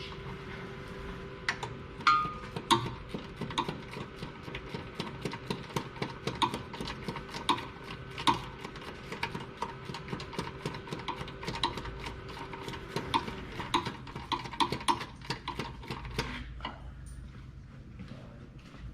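Snap-on long flex-head ratchet clicking in short, irregular strokes as it turns a sway bar bushing bracket bolt. The clicks stop about two seconds before the end, and a faint steady hum runs under them.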